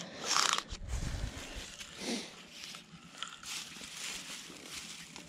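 Rustling and scuffing of boots and gear in dry, matted grass, with a short scraping sound about half a second in.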